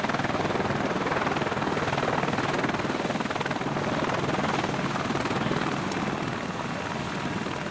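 An engine running loudly and steadily, easing off a little in the last couple of seconds.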